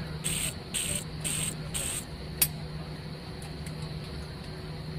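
Airliner cabin hum while taxiing, a steady low drone from the engines at idle. Over it come four short, high-pitched chirps about half a second apart in the first two seconds, then a single sharp click.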